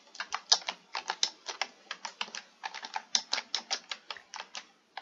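Typing on a computer keyboard: a steady run of keystrokes, several a second, with a brief pause near the end.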